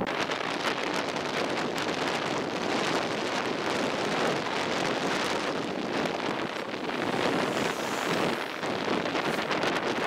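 Steady rush of wind and road noise in a moving car, with wind buffeting the microphone.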